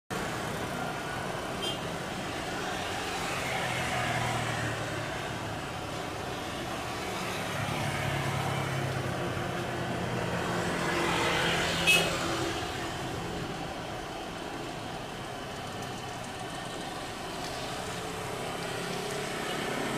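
Airbus A330-300 with Rolls-Royce Trent 700 engines taxiing at low power: a steady distant jet rumble that swells and fades, mixed with road traffic noise. A brief sharp click near the middle.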